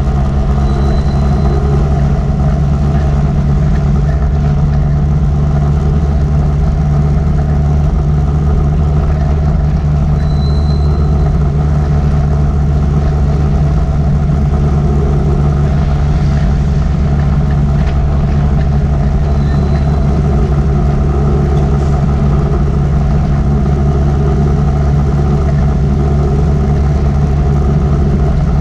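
Motorbike engine running steadily at cruising speed, with constant wind and road noise from riding.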